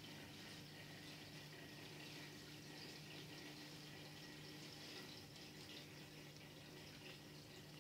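Faint aquarium aeration: a stream of air bubbles fizzing and popping at the water surface, with many small crackles, over a steady low hum from the tank's equipment.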